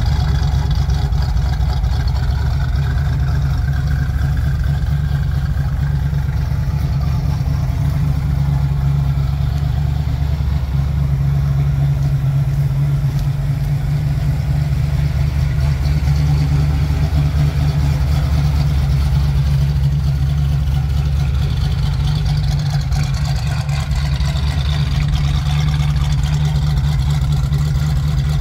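1978 Pontiac Trans Am's V8 engine idling steadily.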